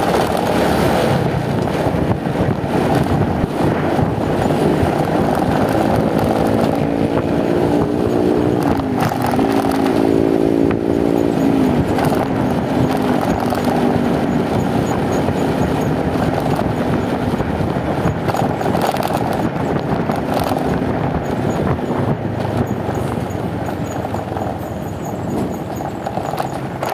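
Riding on a motorcycle: steady wind rush on the microphone over the running engine and road noise. Between about six and twelve seconds in, an engine's pitch rises and falls.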